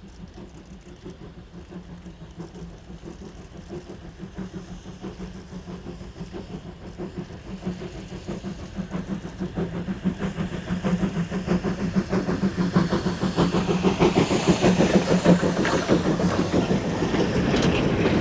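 Steam locomotive working towards the microphone: a fast, even beat of exhaust chuffs that grows steadily louder as it approaches, loudest near the end.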